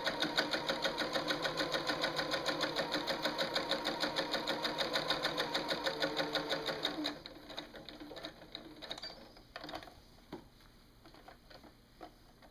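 Domestic sewing machine stitching a seam through two layers of cotton fabric, running at a steady rate of about eight stitches a second, then stopping about seven seconds in. After that, only a few faint clicks.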